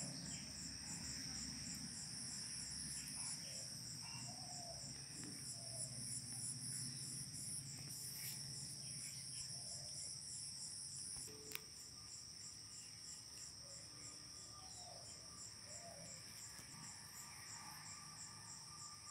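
An insect chorus, cricket-like, in a continuous high-pitched trilling with fast even pulses, with a few faint bird chirps. A single sharp click comes about halfway through, after which a low rumble drops away.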